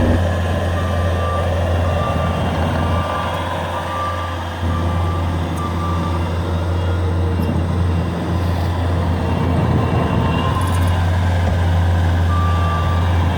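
Diesel engine of a Bobcat compact machine running steadily while its backup alarm beeps about twice a second. The beeping runs through the first half and starts again near the end.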